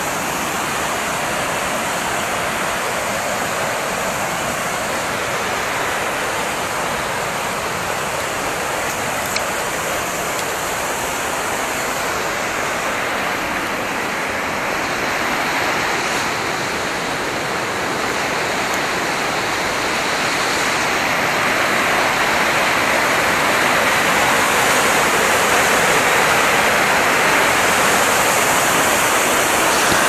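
Waterfall and the rocky cascades below it rushing in a steady, even noise, the water running in full, abundant flow; it grows a little louder about two-thirds of the way in.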